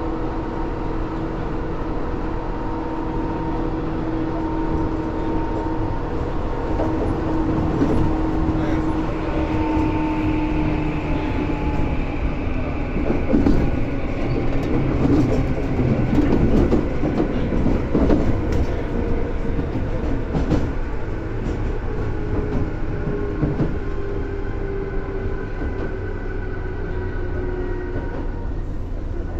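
Tobu 10000 series electric train running, heard from on board: a steady rumble with a motor whine of several tones that slide slowly in pitch, a higher whine joining about nine seconds in. Through the middle of the stretch the wheels clatter repeatedly over track joints.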